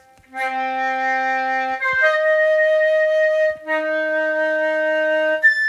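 GarageBand's software flute played from a keyboard: a few long held notes, each lasting about one and a half seconds, with a higher single note near the end.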